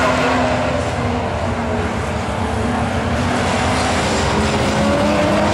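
Several National Super Rods race cars' engines running together on a short oval. The engine note falls over the first couple of seconds, then climbs again near the end as they accelerate.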